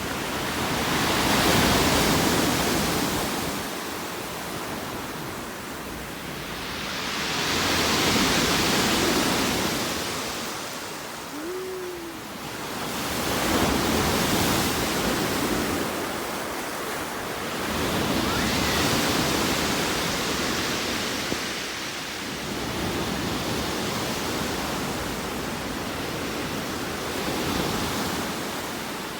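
Sea surf, waves breaking and washing in, the noise swelling and fading about every six seconds. A short faint whistling tone rises and falls about halfway through.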